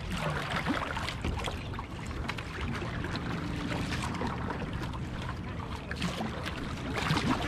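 Kayak paddle blades splashing in and out of the water, with the steady wash of water around a K1 racing kayak.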